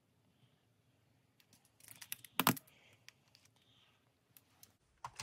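A few light clicks and taps from a marker pen being handled and set down, the loudest click about halfway through.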